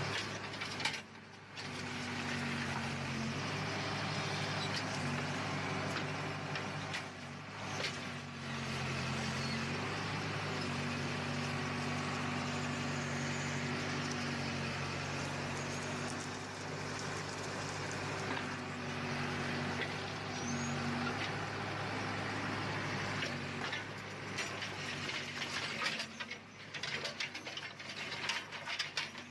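Heavy diesel road-works machinery running steadily, its engine note shifting every few seconds. Near the end a run of irregular clanks and clicks comes in.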